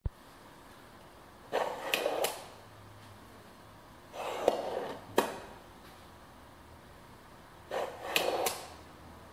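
Heavy-duty full-extension ball-bearing steel drawer slide being slid out and pushed back by hand: three rolling, rattling runs of the ball bearings along the telescoping members, each about a second long and ending in sharp metallic clicks as the slide hits its stops.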